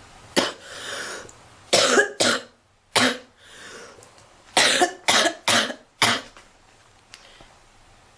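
A young woman coughing on cigarette smoke: a fit of about eight sharp, harsh coughs in three bouts, with breaths drawn in between.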